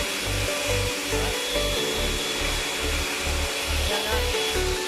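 Music with a steady, thumping beat and a simple melody, over a steady hiss from running workshop machinery.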